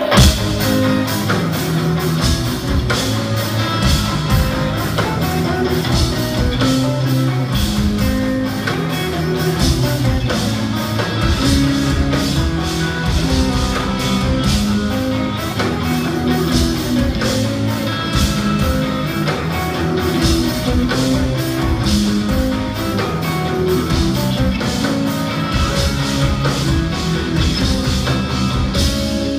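Live instrumental progressive metal: two distorted extended-range electric guitars and a drum kit playing loudly together, with a dense, fast run of drum hits throughout. The full band comes in with a loud hit right at the start.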